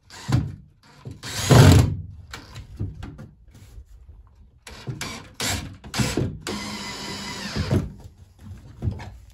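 Cordless drill driving screws into a wooden 2x4 frame in short bursts, with knocks as the wood is handled; the longest run of the motor lasts just over a second, about three-quarters of the way in, its pitch rising slightly.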